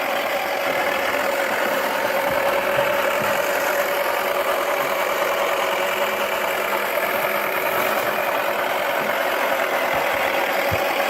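Toy washing machine's small electric motor running steadily with a whirring hum as its drum turns, with a few faint knocks.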